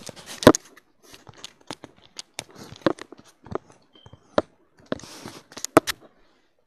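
Hands fitting accessories onto a plastic action figure: a run of small plastic clicks, taps and rustles, with a few sharper knocks near the start and again toward the end.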